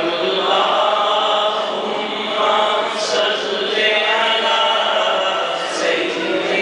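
Men's voices chanting a naat, a devotional song in praise of the Prophet, with no instruments heard.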